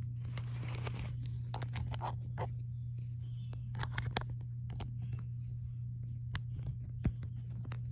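Plastic Lego pieces being handled and pressed together: scattered sharp clicks and taps, the loudest about seven seconds in, over a steady low hum.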